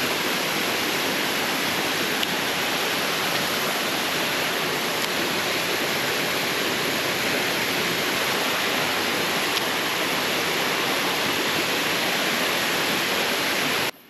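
Water spilling over a small weir on a mountain stream, a steady, even rush of falling water that cuts off abruptly near the end.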